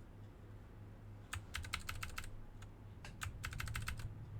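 Mechanical keyboard with clicky Gateron Blue switches being pressed in two quick bursts of keystrokes, the first about a second in and the second near three seconds in, as key combinations are tried to change its backlight effect.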